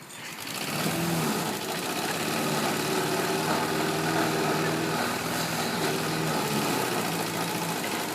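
Lawn mower engine running steadily; it climbs in pitch about a second in, then holds, and cuts off abruptly near the end.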